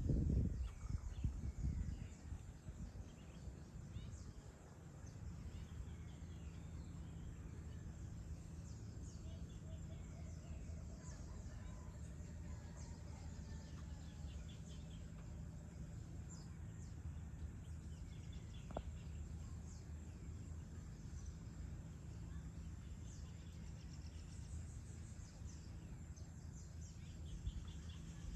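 Outdoor evening ambience: scattered short bird chirps over a steady low hum, with a low rumble that dies away in the first two seconds. The chirps come thicker near the end.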